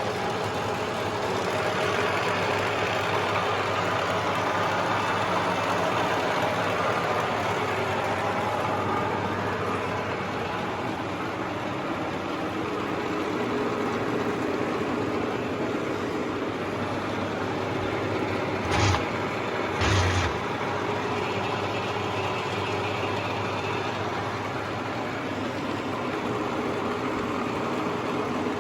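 Huron MU6 milling machine running with a steady mechanical hum. Two short clunks come about two-thirds of the way through.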